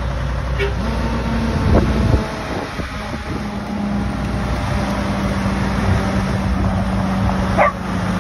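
Diesel engines of semi-truck haulers running as they roll slowly past, with a low rumble that eases about two seconds in and a steady hum underneath.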